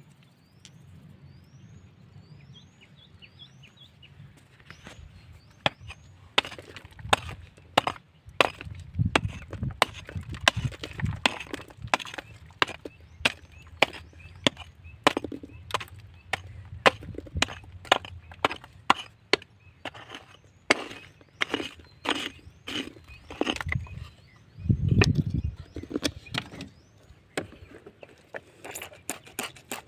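Hand tool striking and breaking rock: irregular sharp knocks and cracks, a few a second, starting about five seconds in, with a heavier low thud near the end.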